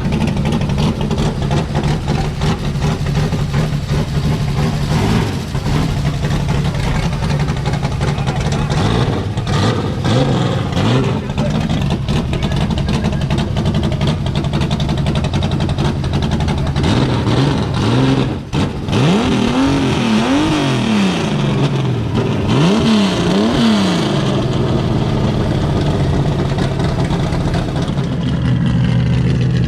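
Loud Chevrolet Opala straight-six engine idling, then revved in about four quick blips, one after another, about two-thirds of the way in, the pitch rising and falling with each.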